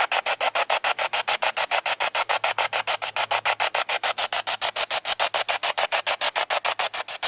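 Spirit box (ghost box) sweeping rapidly through radio stations, giving a fast chopped hiss of about nine bursts a second.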